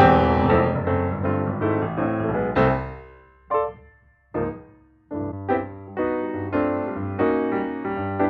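Background piano music: a flowing run of notes that thins to two lone notes with quiet gaps about three to five seconds in, then carries on.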